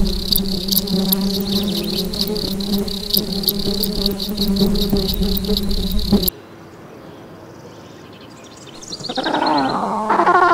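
Insect sound effect: rapid, regular chirping over a steady buzz, cut off abruptly about six seconds in. After a short lull, a different sound of wavering, gliding cries begins near the end.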